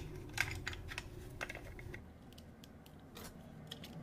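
Scattered light plastic clicks and taps of a Bosch 12 V drill battery pack's casing as its spring-loaded red release latches are fitted into place by hand.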